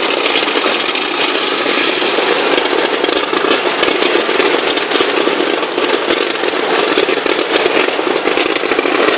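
Ground fountain fireworks spraying sparks with a loud, continuous hissing rush, thick with fine crackles.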